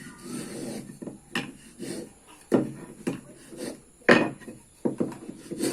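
Wood being worked by hand: irregular scraping and rubbing broken by several sharp wooden knocks, the loudest about four seconds in.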